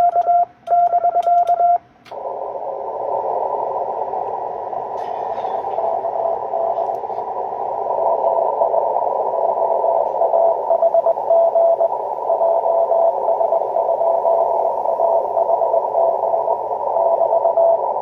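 Morse code (CW) on amateur radio: a clean keyed tone sending dots and dashes for about the first two seconds. Then comes a radio receiver's hiss through a narrow CW filter, with a weaker Morse signal keying in and out of the noise from about six seconds in.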